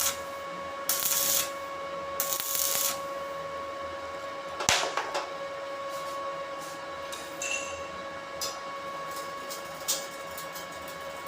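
Tool work: two short scraping strokes, a sharp knock a little under five seconds in, then scattered light clicks and taps, over a steady electrical hum.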